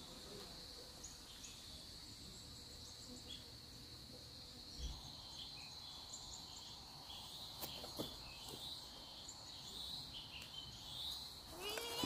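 Faint, steady high-pitched insect trill, with a few scattered faint chirps and soft ticks. Right at the end a cat starts to meow.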